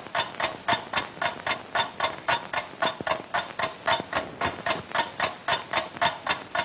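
Steady rhythmic soundtrack percussion: hissing beats at about four a second, like a shaker or a chuffing train, with a few sharp clicks of old film-print crackle about four seconds in.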